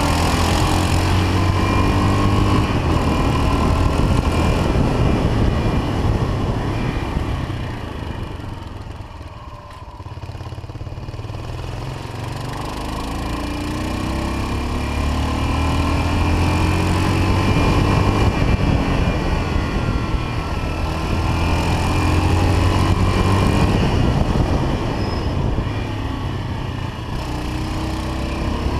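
A 1979 Yamaha XT 500's single-cylinder four-stroke engine running on the road under wind rush, its pitch rising and falling through the gears. It goes quieter about eight to eleven seconds in as the throttle eases, then builds again.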